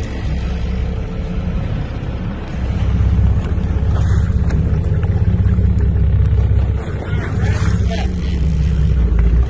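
Engines of a 41-foot Albemarle sportfish boat rumbling as the boat backs down on a hooked fish, getting louder about two and a half seconds in.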